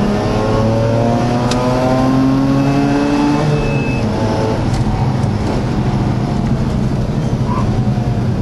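Mazda RX-8's twin-rotor rotary engine heard from inside the cabin under hard acceleration, its note climbing steadily for about three and a half seconds. It then eases off to a steadier drone with road and wind noise.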